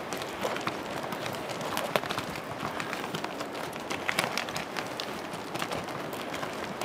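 Herd of yaks walking past on a stony trail, their hooves clattering irregularly on loose gravel and rocks, with a few sharper knocks about two and four seconds in.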